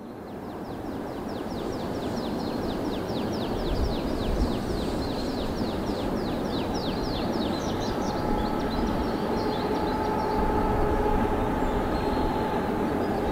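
A freight train hauled by a 2ES10 "Granit" electric locomotive approaching, its rumble growing steadily louder, with a steady whine joining about eight seconds in. A bird gives a fast run of high, falling chirps, about four a second, over the first seven seconds or so.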